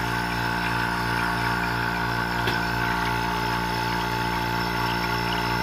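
Electric vacuum pump running steadily, drawing a vacuum on a glass-top vacuum chamber, with a light tap about halfway through.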